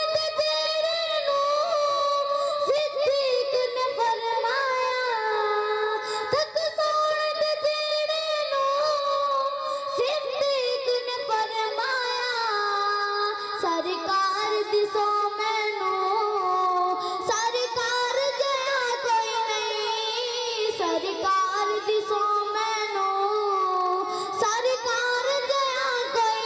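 A boy singing a Punjabi naat into a microphone, one high voice in long held notes that waver and slide between pitches without a break.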